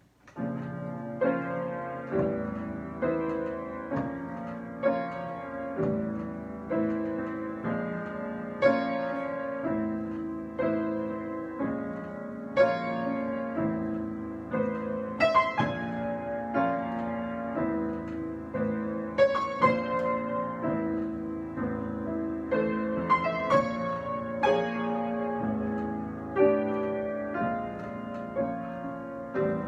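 Solo piano improvisation: chords and melody notes struck and left to ring and fade, at an unhurried pace with occasional louder accents.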